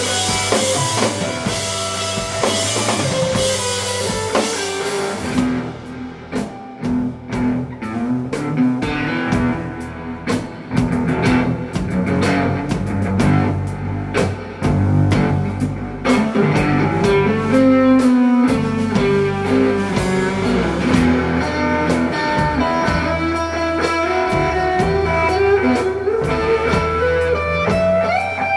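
Live rock band playing an instrumental passage led by electric guitar. Cymbals wash over the first five seconds and stop suddenly, leaving sharply picked guitar notes over bass and drums.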